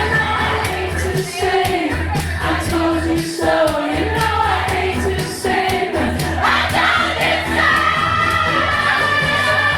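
Pop song with a sung vocal over a steady bass line and beat.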